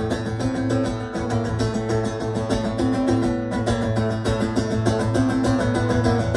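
Acoustic guitar strummed steadily in an even rhythm, played live without singing.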